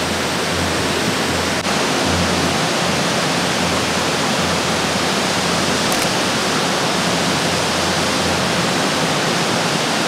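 Triple Falls, a large multi-tiered waterfall, with water rushing steadily over wide rock ledges in an unbroken, even wash of noise.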